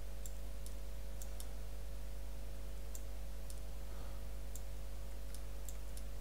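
Computer mouse button clicking lightly about ten times at irregular intervals as the airbrush tool is used, over a steady low electrical hum.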